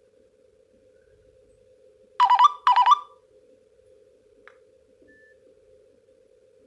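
Nokia 103 ringtone playing through the phone's small speaker: a pair of short, bright, buzzy ring tones half a second apart, about two seconds in, part of a ring that repeats every few seconds. A faint steady hum sits underneath.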